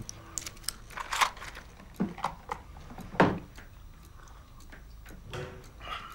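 A man taking a pill from a blister pack and washing it down with a glass of water: a quick run of small clicks and crackles, then a few louder knocks and mouth sounds, the loudest about three seconds in.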